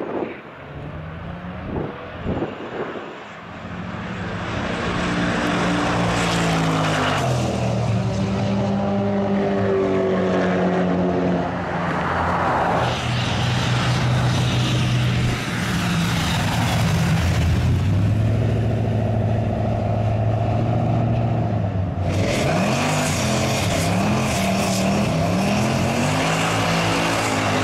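Plymouth muscle car's V8 engine running at low revs, its pitch rising and falling now and then, then revved in a series of short throttle blips near the end.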